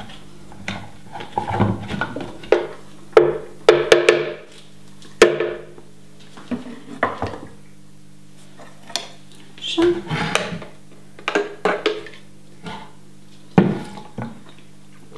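Intermittent knocks and clatter of kitchen utensils being handled: a plastic blender jar's lid taken off, and utensils picked up and set down on a wooden counter, in short bursts with pauses between.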